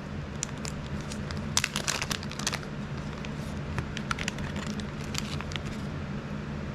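Crinkling and crackling of plastic packaging being handled as a new replacement part is taken out, densest between about one and a half and two and a half seconds in, then scattered. A steady low hum runs underneath.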